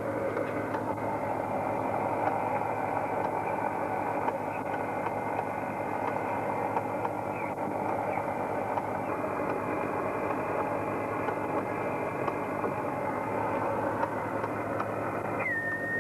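Fishing boat's engine running steadily, a dense continuous drone with no change in speed. Near the end a short high tone slides downward.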